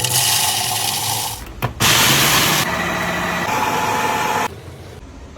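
Electric mixer grinder motor running at high speed with a whine over a rushing grinding noise. It stops briefly about a second and a half in, starts again, changes pitch twice and cuts off about four and a half seconds in.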